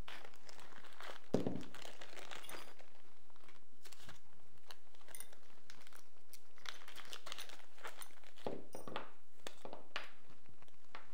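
Rifle parts being handled and fitted on a tabletop during assembly: scattered light clicks and taps of small metal parts, with one duller thump about a second in.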